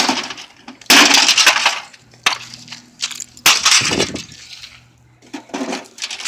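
A microwave oven being smashed apart with blows, each hit followed by breaking and crunching. There is a sharp hit at the start, a long loud crunch about a second in, more hits and crunches around two and three and a half seconds, and smaller ones near the end.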